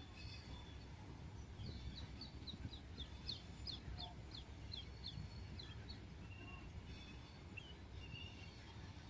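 A small bird chirps a quick run of short, high, falling notes, about four a second for some four seconds, then a few scattered chirps, over a low, steady rumble.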